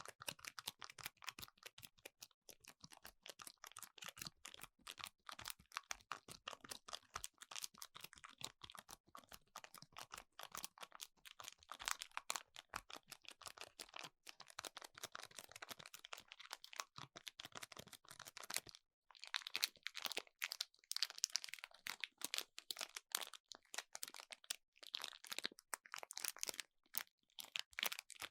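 Close-miked rapid tapping and clicking, many small strikes a second, turning to a higher, crinkly rustle after a brief break about two-thirds of the way through.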